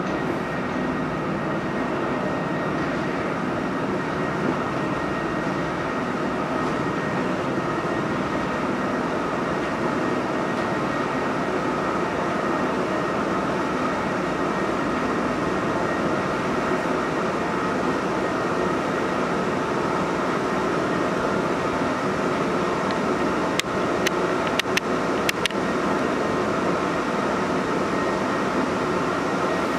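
ZENNO SS40E brushless tubular motors running with a steady hum as they lower motorized wooden venetian blinds. A quick run of sharp clicks comes about 24 seconds in.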